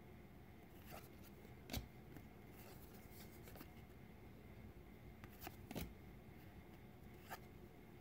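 Faint rustle and light ticks of 2019 Donruss baseball trading cards being handled and slid one behind another in the hand, with the clearest tick about two seconds in and a few more in a quick cluster past the middle.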